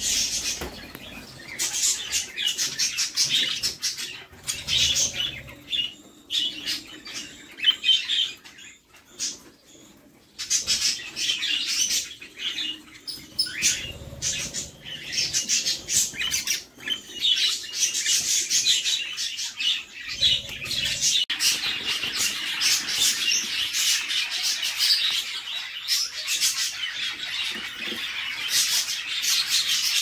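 Budgerigar chicks in a nest box chirping in rapid, high-pitched calls: the begging calls of young chicks being fed by a parent. The calling is near-continuous, with a brief lull about a third of the way in, and grows denser and steadier in the second half.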